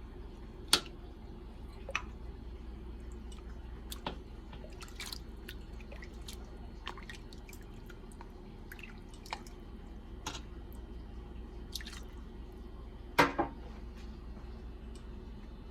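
Scattered single drips of liquid, a few seconds apart, with a sharper double drip about 13 seconds in, over a steady low hum.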